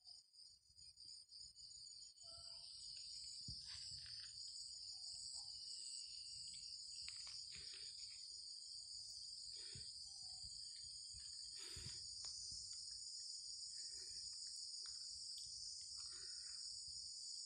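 Steady, high-pitched drone of forest insects calling without a break, faint.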